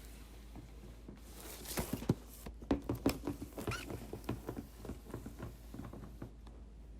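A quick run of small clicks, scratches and rustles from toy packaging being handled, with a brief squeak near the middle. It starts about a second and a half in and dies away near the end.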